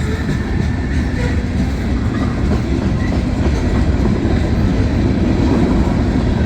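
Freight train cars, mostly boxcars, rolling past at about 20 to 25 mph: a steady rumble of steel wheels on the rails.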